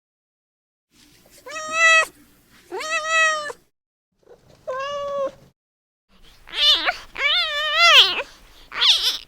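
Young kitten meowing over and over, about six high-pitched calls with short silences between them, the newborn kitten calling for its mother.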